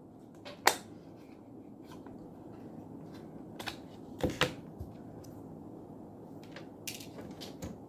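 A few light, sharp clicks and taps from a Samsung Galaxy Grand Prime's parts being handled while its screen is taken out, spaced a second or more apart, over a faint steady background noise.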